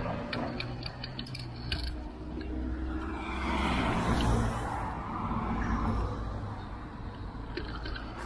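A car passing close by, its tyre and engine noise swelling to loudest about four seconds in and then fading, over the steady hum of street traffic.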